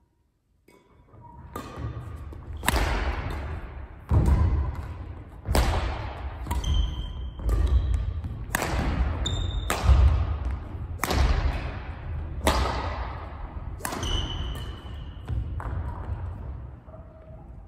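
Badminton rally: about ten sharp racket strikes on the shuttlecock, one every second and a half or so, each ringing on in the large gymnasium, with the players' footfalls thudding on the wooden court floor between them.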